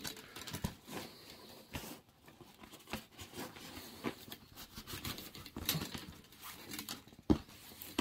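Nylon tubular webbing being bunched and slid along paracord by hand on a plywood board: irregular rustling, scraping and small taps, with one sharper knock near the end.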